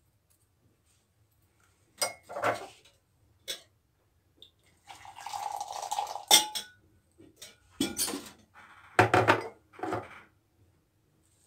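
A metal spoon clinking, knocking and scraping against the metal couscoussier pot while stirring seffa vermicelli. The knocks come in scattered clusters, with a longer scraping stretch midway.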